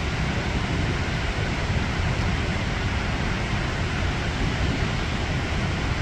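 Steady rushing roar of Victoria Falls, the Zambezi plunging down the basalt cliff into the gorge, heaviest in the low rumble.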